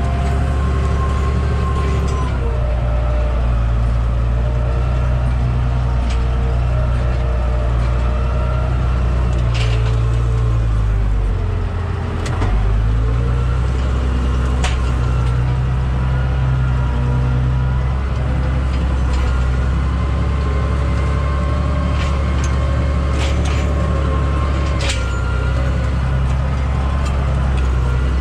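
Case tractor's diesel engine working under load while it pulls a tillage cultivator through the soil, heard from inside the cab: a steady drone whose note dips briefly around the middle and then picks up again, with a few scattered light knocks and rattles.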